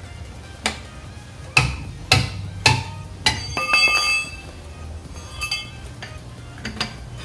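A hammer striking the handle of a steel lug wrench on a car's wheel nut, about five sharp blows in the first three and a half seconds, to break loose tight lug nuts. Ringing metallic clinks follow, and a few lighter clinks near the end as the wrench is fitted onto the next nut.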